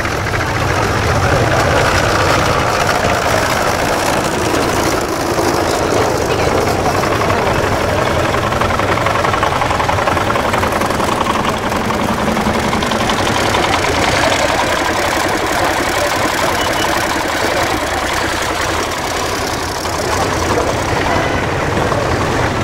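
Engines of several vintage farm tractors running steadily as the tractors drive slowly past one after another, with crowd chatter underneath.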